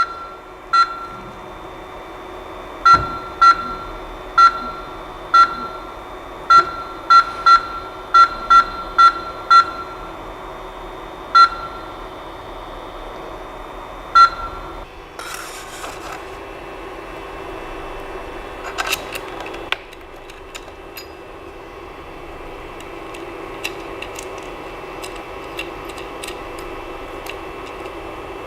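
Creality CP-01's control-panel buzzer giving short single beeps, about a dozen in the first fourteen seconds at irregular intervals, as its buttons are pressed, over a steady hum. A brief hiss comes about fifteen seconds in, and fainter ticks follow near the end.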